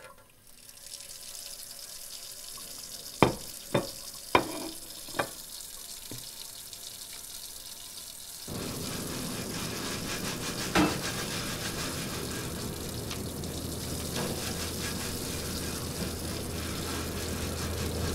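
Four sharp knocks, then water running steadily from a kitchen tap into a sink from about eight seconds in, with one more clatter a couple of seconds after it starts.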